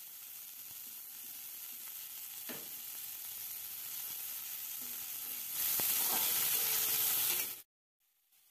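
Sliced baby corn frying in hot vegetable oil in a kadai: a steady sizzling hiss that swells louder about two-thirds of the way through, then cuts off abruptly near the end.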